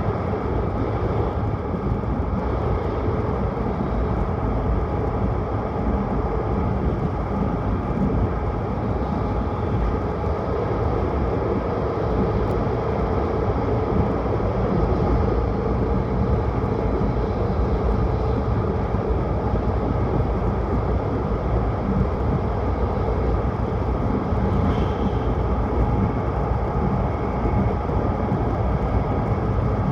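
Tohoku Shinkansen train running, a steady even rumble and rush of running noise heard from inside the passenger car.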